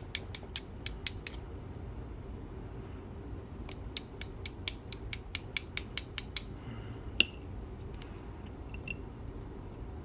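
Small metal clicks from a high-security pin-tumbler lock being taken apart by hand: two runs of rapid, even clicks, about four a second, the second starting about four seconds in, then a few scattered ticks.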